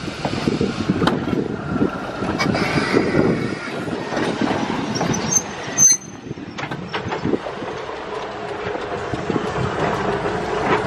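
1923 Chicago Aurora and Elgin interurban electric car No. 409 rolling slowly past: steel wheels rumbling and clicking over the rail joints, with a brief high-pitched wheel squeal about halfway through.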